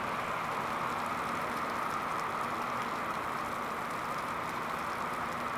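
Heavy rain pouring down onto a wet gravel yard, a steady, even hiss.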